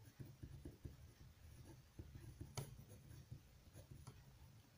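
Pen writing on paper, a run of faint scratching strokes, with one slightly louder tap about halfway through.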